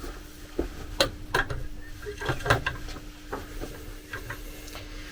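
Irregular light clicks and knocks as the freshly fitted spool holder and bracket of a Bambu Lab A1 Mini 3D printer are handled and checked, over a faint steady hum.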